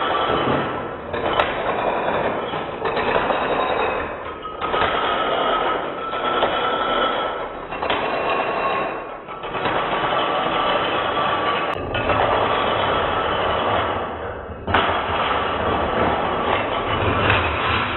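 Dominoes toppling in chains: a continuous, rapid clatter of tiles knocking into one another, broken by brief drops or cuts every few seconds.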